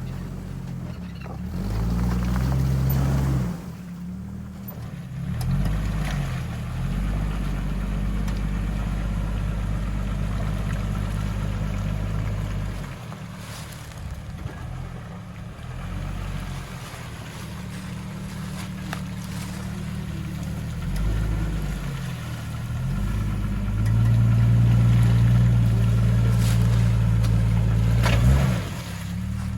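Jeep engine running on a trail, its revs rising and falling, with the loudest stretch near the end.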